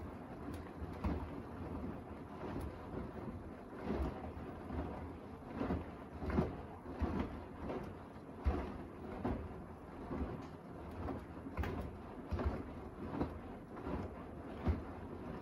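Beko WDR7543121S washer-dryer in its wash phase: wet clothes and soapy water sloshing and slapping in the turning drum, a continuous run of splashes with louder surges about once or twice a second.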